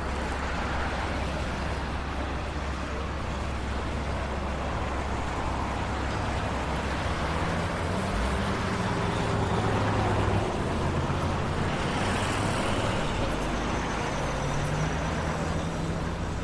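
Steady city street traffic: vehicle engines running and passing, with a low engine drone that changes pitch about halfway through.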